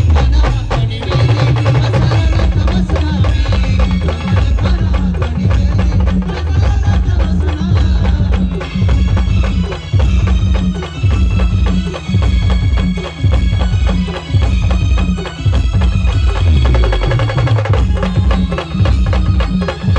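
Indian brass band playing an instrumental passage with no singing, led by horns over a steady, heavy drum beat.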